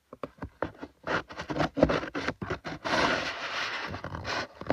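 Packaging being handled during an unboxing: a run of quick rustles and scratches, then a longer continuous scrape over the last two seconds.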